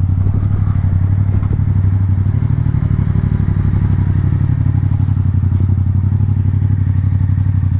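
Yamaha MT-07's parallel-twin engine running steadily at low revs through a full Akrapovic titanium exhaust, ridden without its baffle or catalytic converter.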